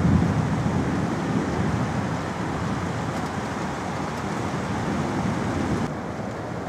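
Steady rushing noise of a rainstorm outside, louder at first and easing off over the first couple of seconds.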